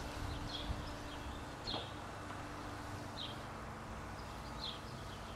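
A small bird chirping faintly, one short high call about every second and a half, over a low steady background hum.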